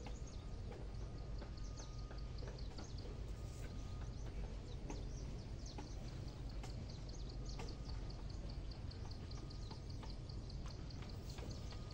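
Water splashing and dripping as a wet cast net is hauled up out of a river hand over hand, a quick irregular patter of drops, over a steady low rumble.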